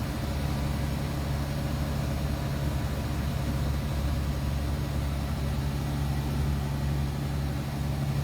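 A large engine running steadily with a low, even drone.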